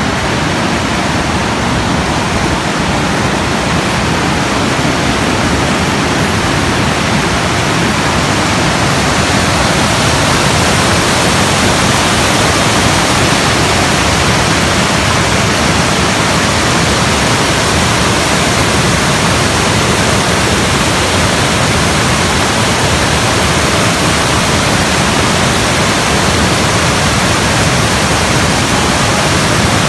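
Water of Ocqueoc Falls rushing over the cascade: a loud, steady, even rush, a little louder from about ten seconds in.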